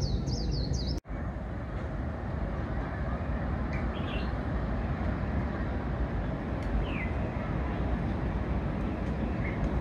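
Outdoor ambience of a steady low rumble with songbirds chirping: a fast run of high repeated chirps in the first second, then a few scattered single chirps. The sound cuts out for an instant about a second in.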